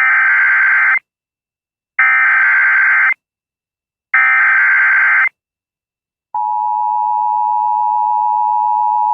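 Emergency Alert System SAME header: three identical bursts of warbling digital data tones, each about a second long and a second apart, carrying the tornado watch alert codes. About six seconds in, the steady EAS attention tone starts and holds.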